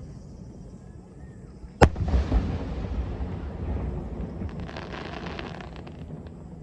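An aerial fireworks shell bursting with one sharp bang about two seconds in, its boom rumbling on for a few seconds, then a run of fine crackles near the end.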